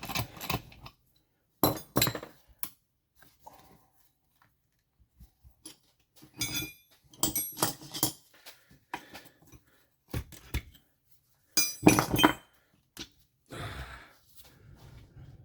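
Metal hand tools clinking and knocking against a Tomos moped engine's casing and parts during a strip-down, in scattered bursts with short metallic ringing and a loud cluster about twelve seconds in.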